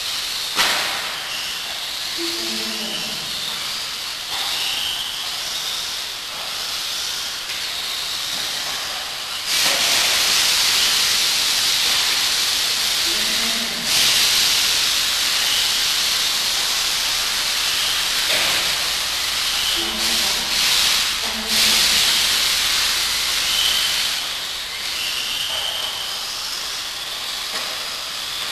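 Radio-controlled off-road buggies running laps on an indoor dirt track: a steady hiss of tyres and electric motors with brief high whines. It grows louder for stretches through the middle.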